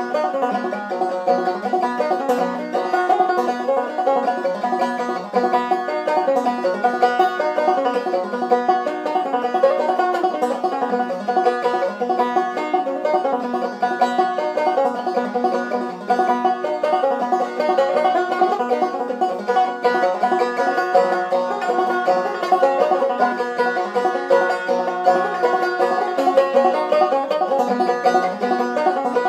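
Five-string banjo played in clawhammer style: a steady, unbroken run of plucked and brushed notes.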